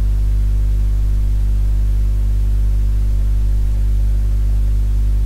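Loud, steady electrical mains hum: a low buzz with a ladder of overtones above it, unchanging throughout, with faint hiss.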